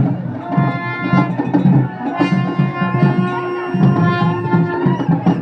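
Live procession music: drums beating a steady rhythm under a melody of long held notes from a wind instrument.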